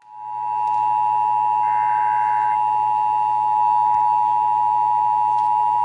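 Emergency Alert System attention signal: a steady two-tone alert (853 Hz and 960 Hz sine tones sounded together) held without a break, announcing the national test message.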